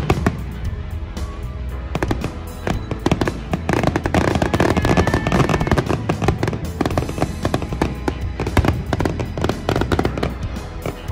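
A fireworks display with shells bursting and crackling in quick, dense succession. Music plays alongside.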